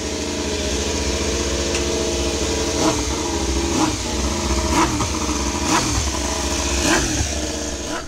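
Racing motorcycles passing one after another, about one a second, each engine note rising and then falling in pitch as it goes by, over a steady engine drone.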